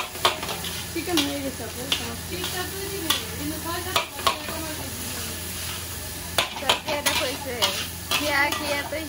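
Metal spatula scraping and clanking against a stainless steel wok at irregular intervals as fried rice is tossed and stirred, over a steady sizzle and a low hum.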